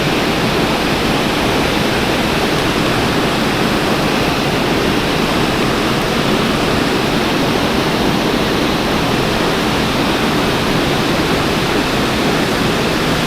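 Creek water rushing steadily, a constant even sound of flowing water.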